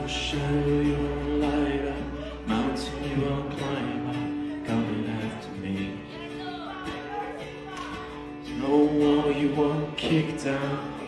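Live worship song: a man singing with a strummed acoustic guitar and band accompaniment.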